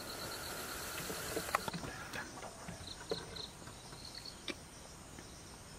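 Insects chirping in quick pulsed runs, twice, over a faint hiss, with a few faint clicks.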